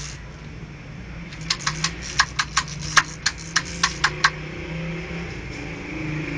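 About a dozen sharp clicks over three seconds as a small handheld device is worked again and again without taking. A steady low hum runs underneath.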